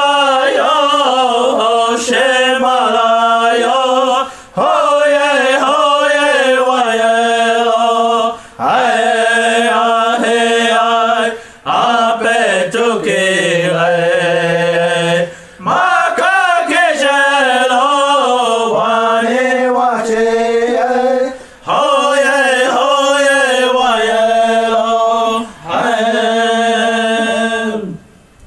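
A voice chanting a Lakota/Dakota prayer song in long held phrases with a slight waver, with short breaks between phrases. The singing stops near the end.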